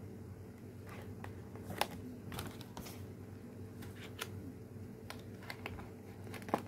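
Scattered light clicks and rustles of a package being cut open with scissors and handled, irregularly spaced, over a steady low hum.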